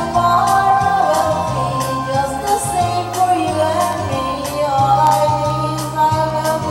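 Women singing karaoke into corded microphones over an amplified backing track with a bass line and a steady beat.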